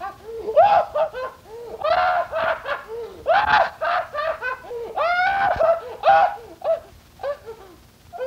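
A rapid run of high-pitched, laugh-like vocal cries, each one rising and then falling in pitch, that fades out near the end.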